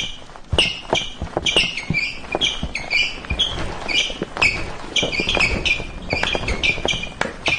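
Dancers at a silent disco heard without the music in their headphones: a rough rhythm of stomps and thuds from the dance floor, about two or three a second, each with a short sharp high burst.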